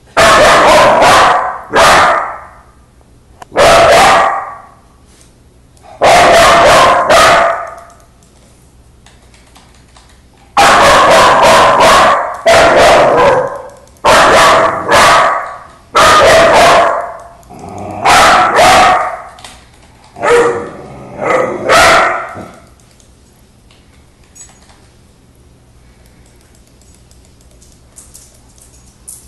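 A young dog barking in repeated loud volleys of quick barks at an old dog that does not respond because it is deaf; the barking stops about twenty-two seconds in.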